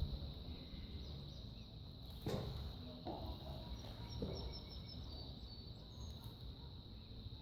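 Quiet outdoor background: a steady high-pitched insect drone, a few faint bird chirps near the middle, and a few soft knocks.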